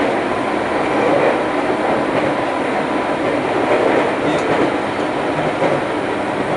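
Running noise inside a JR East 205 series electric train's motor car at speed: a steady rumble of wheels on rail with some clickety-clack over the rail joints and a faint steady hum.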